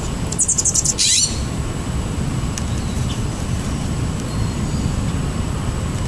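A bird's high, rapid trill lasting about a second, near the start, over a steady low rumble.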